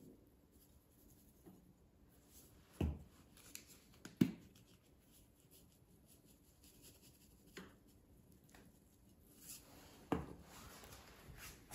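Salt and pepper shakers handled and shaken, a faint sprinkling hiss broken by four light knocks, the sharpest about four seconds in.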